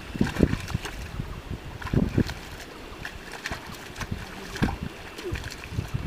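Muddy water sloshing and splashing as a water buffalo drags a wooden plough through a flooded paddy field. Irregular low thuds and splashes come every second or two over a steady wet rustle.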